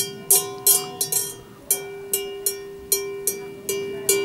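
Cowbell on a grazing cow clanging irregularly, about two or three strokes a second, each stroke ringing on at the same pitch.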